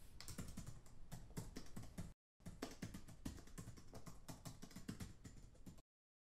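Computer keyboard typing sound effect: a quick run of faint keystroke clicks, broken by a short pause about two seconds in, then a second longer run.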